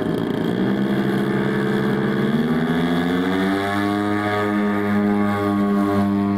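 Twin engines of a large radio-controlled scale model Heinkel He 111 bomber running up on the ground, their pitch rising over the first three seconds as the throttle opens, then holding steady with brief dips about once a second.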